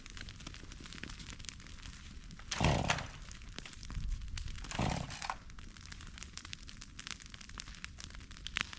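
Cut cedar brush crackling and snapping, with two louder rustling crashes about two seconds apart.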